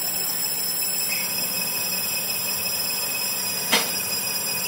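Metal lathe turning a cast-iron brake disc, the tool cutting steadily against the spinning iron with a steady high-pitched whine over the machine's hum. A single sharp click about three-quarters of the way through.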